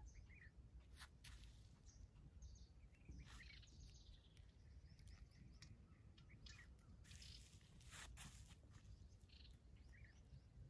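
Faint, scattered bird chirps over near-silent outdoor ambience, with a few soft clicks.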